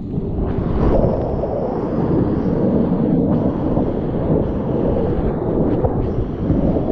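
Loud, steady rush of churning whitewater around a kayak running a rapid, heavy and low with rumble on the microphone.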